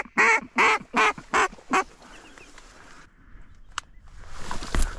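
A hen mallard's descending quack series, the decrescendo or greeting call: about six quacks in the first two seconds, each shorter and quieter than the last. A single sharp tick follows near the end.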